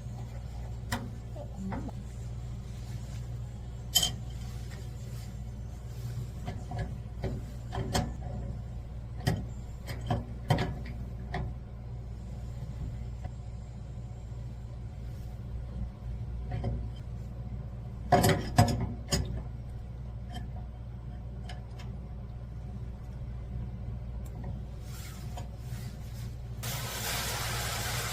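Scattered clicks and knocks over a steady low hum, with a short burst of hissing near the end.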